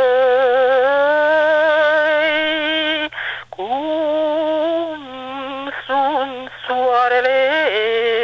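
A single voice singing a slow Romanian folk song without accompaniment. It holds one long note with vibrato, breaks off about three seconds in, then sings shorter phrases that slide up into their notes with ornamental turns.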